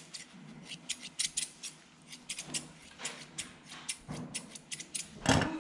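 Grooming scissors snipping through a dog's belly fur in quick, irregular cuts, with one brief louder noise near the end.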